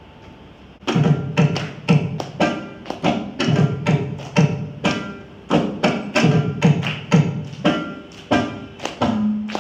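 Mridangam played solo: after a short pause, a quick run of ringing, pitched strokes on the right head mixed with deep booming bass strokes starts about a second in.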